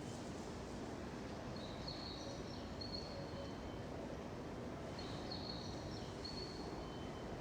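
Steady outdoor background noise with a bird singing short, high chirping phrases, twice, about three seconds apart.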